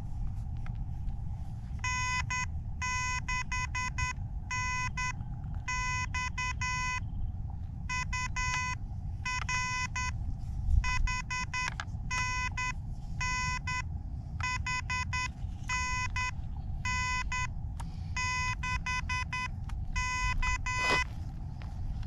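Morse code (CW) from a portable ham radio transceiver's speaker: a single beeping tone keyed on and off in quick dits and dahs, grouped into characters. It starts about two seconds in and stops about a second before the end.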